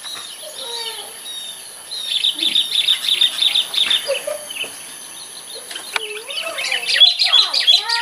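Sooty-headed bulbuls calling: quick runs of short chirps, a burst about two seconds in and a busier one in the last two seconds.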